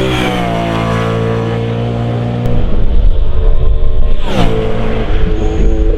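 The V8 engine of a BMW M3 E92 race car at full throttle passing by, its note dropping in pitch as it goes past and pulls away. About four seconds in, another race car flies past close by with a sudden steep drop in pitch, and its engine note carries on afterwards.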